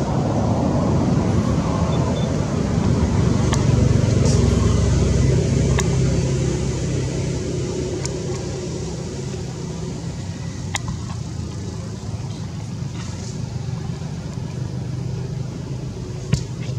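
Low, steady hum of a motor vehicle engine running nearby, swelling louder for a few seconds and then easing. A few faint clicks, with a sharper click near the end.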